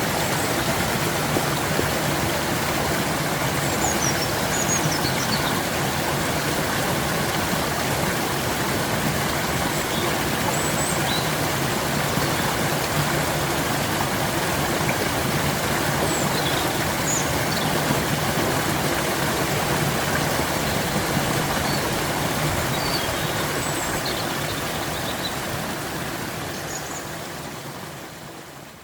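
A stream's running water, a steady rushing, with a few short high chirps scattered through it; the sound fades out over the last few seconds.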